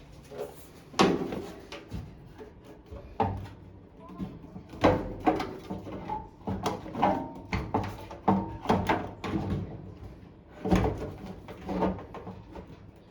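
Irregular knocks and clatter of hard objects being handled, the loudest about a second in and again near the middle and near the end.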